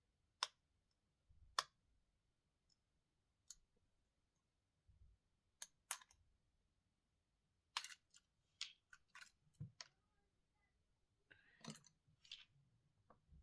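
Small sharp clicks and taps of repair tools and small parts being handled inside a disassembled Samsung S22 Ultra phone, at irregular intervals with a quicker flurry in the second half and near silence between.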